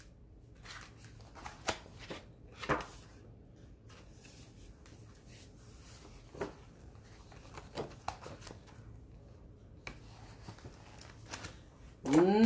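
Pages of a picture book being turned and the book handled: soft paper rustling with scattered light taps and crinkles. A woman's voice starts near the end.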